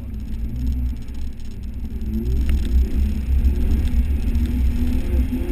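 Jeep Wrangler's engine running as it drives, a low rumble that grows louder about two seconds in, its pitch wavering as the throttle changes.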